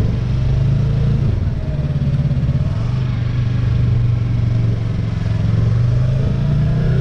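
Sport motorcycle's engine running steadily at low road speed, its note dipping briefly about a second in.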